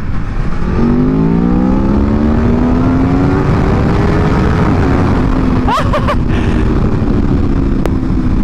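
Aprilia Tuono V4 Factory's V4 engine pulling up through the revs under acceleration, its pitch rising over the first few seconds, then holding steady at cruise. Heavy wind noise runs underneath.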